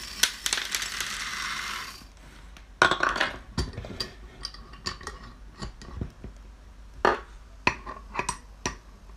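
Dried corn kernels pouring and rattling into the metal pot of a miniature popcorn cannon for about two seconds, with another short rattle near three seconds. Then comes a run of scattered metallic clicks and clinks as the lid is fitted to the pot and its clamp screw is worked.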